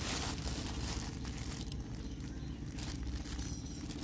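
Thin plastic food-handling glove crinkling and rustling as gloved hands handle a sponge cake on a plate, loudest at the start and again near the end, over a steady low hum.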